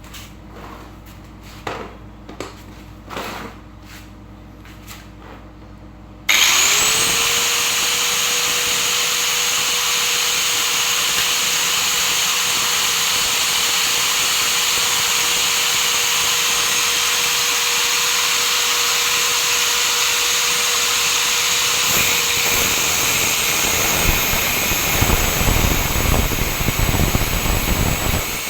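A few clicks, then a handheld electric power cutter is switched on about six seconds in and runs at full speed with a steady whine. Over the last few seconds the sound turns rougher and louder, with a low rumble added.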